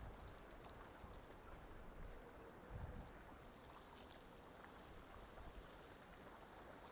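Near silence: faint seaside ambience, with a brief low rumble about three seconds in.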